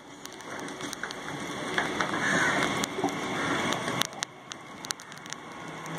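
Steady rain mixed with the running noise of a moving Mumbai suburban electric train, heard from its open doorway, with many sharp ticks through it. The noise drops back about four seconds in.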